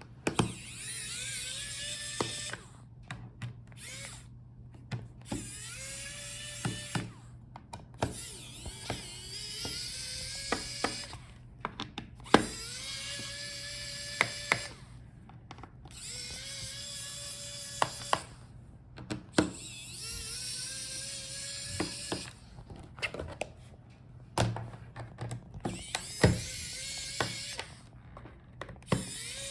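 Small electric screwdriver loosening the laptop's bottom-case screws in about a dozen short runs. Each run spins up in pitch and then whirs steadily, with sharp clicks between runs.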